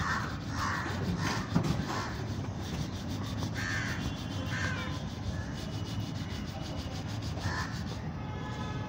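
Steel wool rubbing on a motorcycle's steel wheel rim, a steady rough scrubbing, with harsh cawing bird calls every second or so over it.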